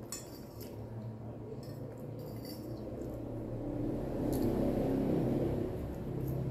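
A metal fork clinking and scraping lightly against a plate while food is picked up, a few small clicks, over a steady low hum that swells a little in the second half.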